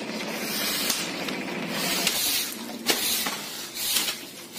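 Weeds and dirt scraped and swept along a dusty lane, heard as a series of hissing swishes, with a couple of sharp knocks of the tool on the ground.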